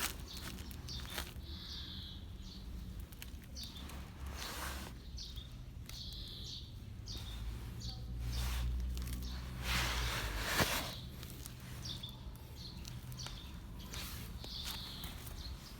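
Small birds chirping on and off, short chirps every second or two, over steady outdoor background noise. A low rumble swells and a brief rustle comes near the middle.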